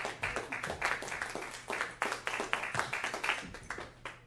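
Audience applauding with fairly sparse, irregular claps that die away near the end.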